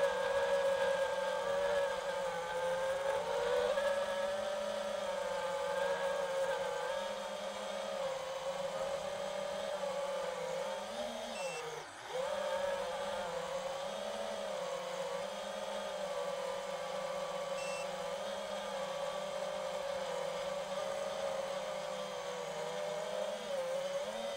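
FPV quadcopter's motors and propellers whining in flight, the pitch wavering up and down with the throttle. About twelve seconds in, the whine drops sharply and climbs straight back.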